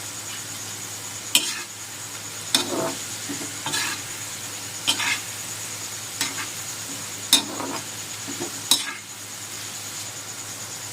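Potato fries sizzling in hot oil in a pan, with a steady hiss. A utensil stirring them scrapes and knocks against the pan about seven times, roughly once a second, and stops about nine seconds in.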